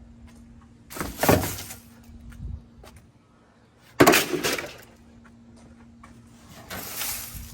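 Three loud crashes, each just under a second and about three seconds apart, with a glassy, breaking clatter: junk being thrown out while a truck is cleared out.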